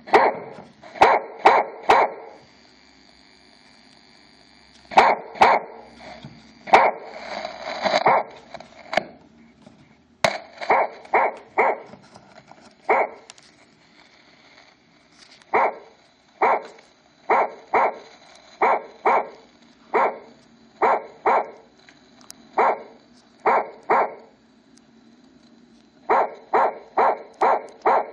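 Electronic watchdog alarm playing dog barks over and over, in quick groups of two to four barks separated by short pauses, with one longer rough stretch about seven seconds in.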